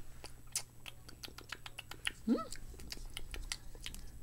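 Lip-smacking: many small wet mouth clicks as a lip balm is tasted, with one short rising squeak-like sound about two seconds in.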